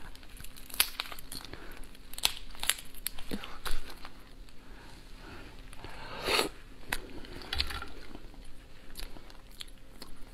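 Spiny lobster shells crackling and snapping as they are twisted and pulled apart by hand, in irregular sharp cracks. A longer crunch comes about six seconds in, as a piece is bitten into.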